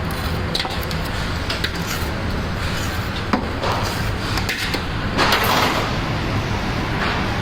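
Busy street-food stall ambience: a steady low traffic hum with scattered knocks and clatter, and a brief louder rush of noise about five seconds in.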